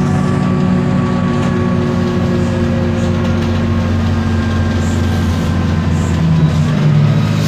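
Isobus City 1200 city bus under way, heard on board: its MAN D0836 inline-six diesel runs steadily beneath a thin drivetrain whine from the ZF Ecomat automatic gearbox and differential, the whine falling slowly in pitch.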